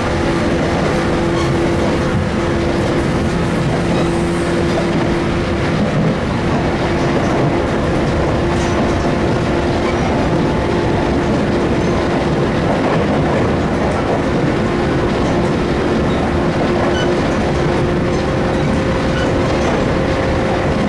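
JR West 117 series electric train running at speed, heard from inside: steady rail and running noise with the hum of its resistance-controlled MT54 traction motors and gearing, its tone shifting slightly about six seconds in.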